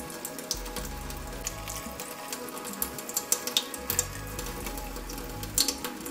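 Instrumental background music with held tones and a slowly stepping low bass line, over scattered crackling clicks.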